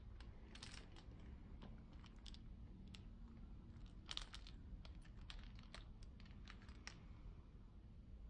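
Resin charm bracelet clicking as the wrist moves: hard resin quatrefoil charms, pearl beads and metal chain links tapping against each other in light, irregular clicks, with a denser cluster a little after four seconds in.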